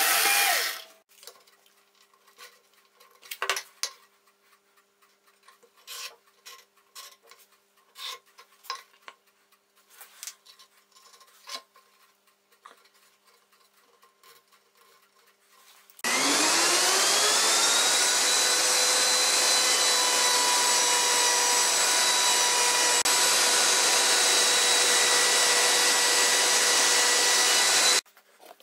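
A drill winds down, then come scattered light scratches and taps. About halfway through, an electric wood router starts up, its whine rising in pitch and then running steady for about twelve seconds before stopping abruptly near the end.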